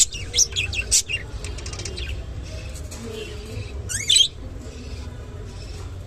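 Budgerigar chirping: a quick run of short high chirps in the first second, then a few scattered ones and one loud rising call about four seconds in.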